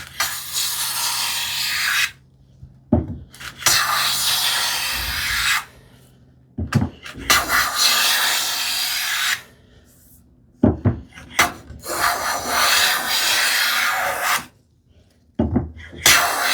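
Long-soled bench plane taking shavings along a board's edge: four long, even strokes of about two seconds each, with short knocks between them as the plane is lifted and set back down. The edge is being trued square.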